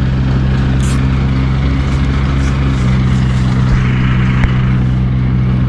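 An engine running steadily at a constant speed, holding one low pitch. There is a brief hiss about a second in and a sharp knock a little past four seconds.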